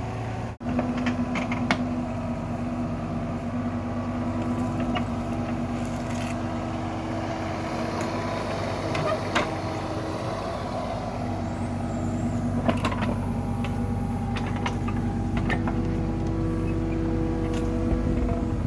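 Heavy machinery engine running steadily, with scattered metallic clanks and knocks over it.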